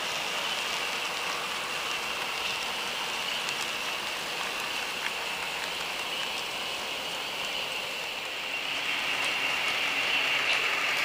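Model railroad freight cars rolling along the track: a steady hiss of small metal wheels on rail, with a few faint light clicks. It grows louder near the end.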